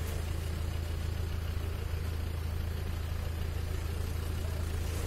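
Land Rover Defender Td5's five-cylinder turbodiesel engine running steadily at idle as the truck creeps slowly onto a seesaw obstacle.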